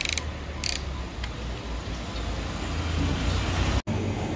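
A car driving slowly along a narrow street, a steady low rumble with a couple of short hissing noises in the first second. The sound breaks off abruptly near the end.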